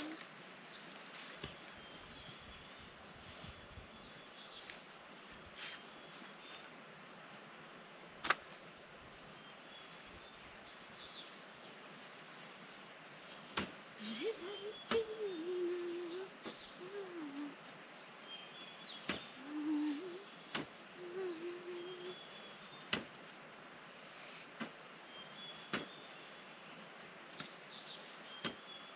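Insects keeping up a steady high-pitched drone, with a sharp click every few seconds and a few faint wavering low tones around the middle.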